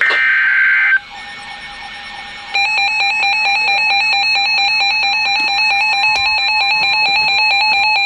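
Midland 74-210 weather radio sounding an emergency alert: a screechy digital data burst (the EAS SAME header) ends about a second in, a quieter steady tone follows, and about two and a half seconds in the radio's loud electronic alarm starts, a rapid pulsing multi-tone beeping that signals a severe thunderstorm warning.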